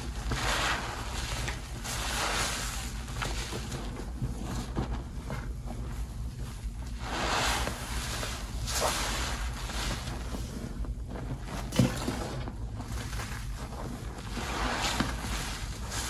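A sponge squeezed and kneaded by hand in a basin of thick detergent foam, making wet squelching and crackling of suds in repeated swells. One brief sharper sound about twelve seconds in.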